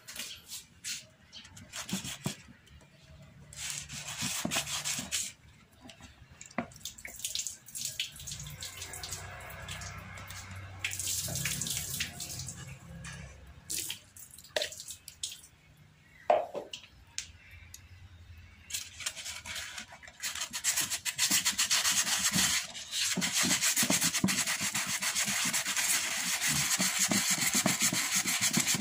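Wet sandpaper scrubbed over the hard plastic of an old monoblock chair, taking off its chalky, powdered top layer. It starts as scattered scuffs and knocks, then settles about twenty seconds in into a steady scratchy rasp of continuous back-and-forth strokes.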